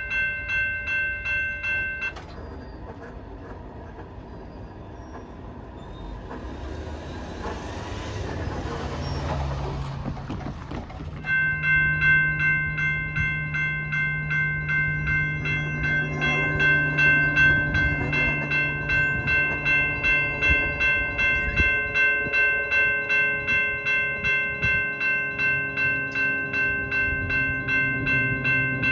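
Railroad crossing warning bells ringing at about two strokes a second stop about two seconds in, leaving a quieter rumble of passing train. About eleven seconds in the bells start again as a Metrolink train approaches. Its diesel locomotive's rumble grows, and from about sixteen seconds a multi-tone train horn sounds under the bells.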